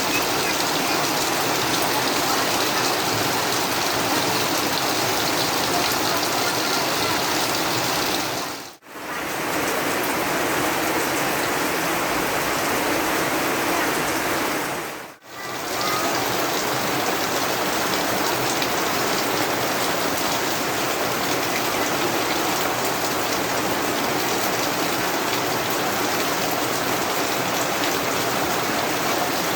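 Steady rain falling, a dense, even hiss of drops on surfaces. It drops out briefly twice, about nine and fifteen seconds in, and comes straight back.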